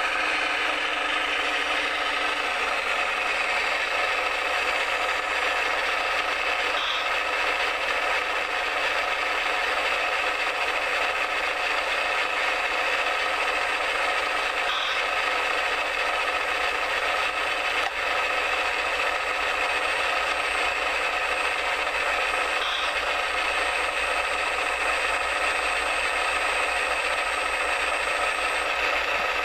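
Radio-controlled model digger's electric motors and gear drives running, a steady mechanical whir with a faint ratcheting rattle.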